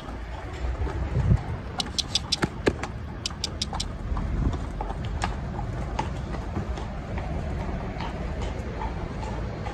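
Hooves of several horses and ponies clip-clopping on brick paving as they walk past, with a quick run of sharp hoof strikes about two to four seconds in and fainter, scattered ones after. A steady low rumble runs underneath.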